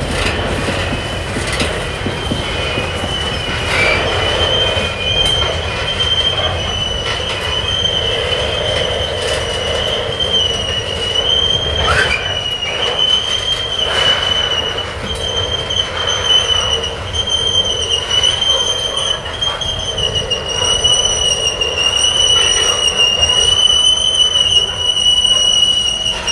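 Coal train of steel hopper cars rolling slowly past, its steel wheels on the rails giving a high, wavering squeal over a low rolling rumble, with a few sharp clanks from the cars.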